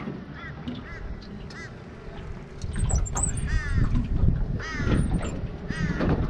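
A bird calling repeatedly in a harsh, crow-like voice: a few short calls in the first two seconds, then three longer drawn-out calls about a second apart. Low wind rumble on the microphone runs beneath them.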